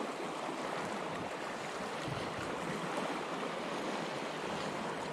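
Small sea waves washing against a rocky shore, a steady wash of water noise.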